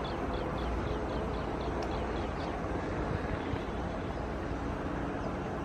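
WDG-5 diesel locomotive with a freight train, approaching slowly as it slows for a temporary speed restriction, its engine a steady low rumble. Over the first two and a half seconds a quick run of short high chirps, about five a second, sounds over it.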